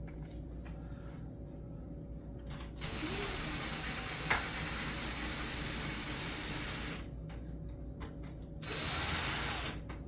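Cordless drill-driver driving screws into a door's lock hardware: one run of about four seconds, then a second, shorter run of about a second near the end.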